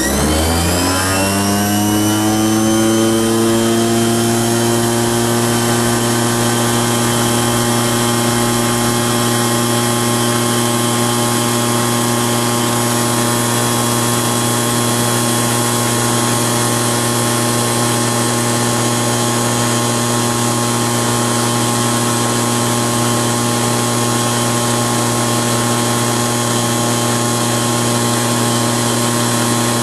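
Brushed DC electric motor, run straight off a 36 V battery bank, switched on and spinning up: a pitched whine rises over about the first two seconds, then holds steady at high speed, around 7,100 rpm.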